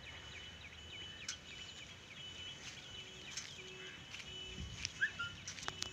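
Outdoor background of birds chirping in quick, repeated short notes over a steady high-pitched tone, with a few sharp clicks.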